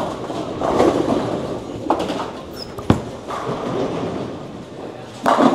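Bowling alley din: the steady rumble of bowling balls rolling down the lanes, with sharp knocks and clatter, the sharpest about three seconds in.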